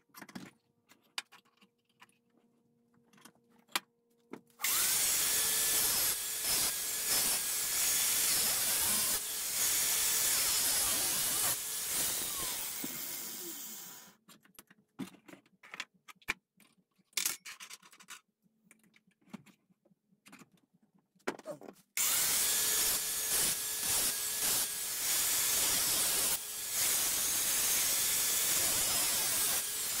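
Power grinder with a flap wheel sanding a metal chainsaw bumper spike, running in two long stretches, each starting with a quick rising whine as the motor spins up. Clicks and knocks of tools being handled come in between.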